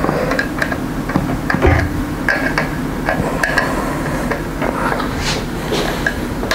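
A screwdriver tightening the steel cover screws on a Variac (variable autotransformer): small, irregular metal clicks and scrapes over a steady background hiss.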